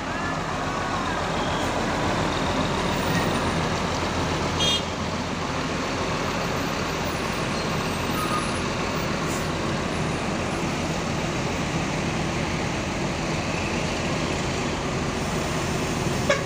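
Large diesel coach-bus engine idling steadily, a low even hum, with one short high blip about four and a half seconds in.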